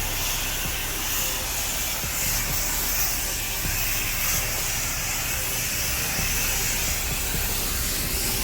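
Pressure washer spraying water, a steady hiss with a low machine hum underneath.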